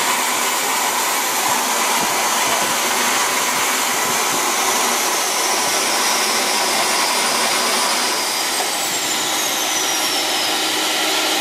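Homemade turbojet built around a TD04HL-13G turbocharger, running on E85: a steady loud rushing noise with a high turbine whine that drops in pitch about eight seconds in.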